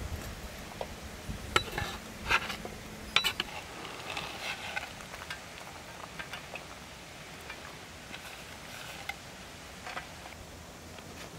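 A metal slotted skimmer clinking against a wooden bowl and pan as peeled chestnuts are tipped onto sliced onions and meat, a few sharp clinks in the first few seconds, followed by light scattered ticks as dried fruit is sprinkled over by hand.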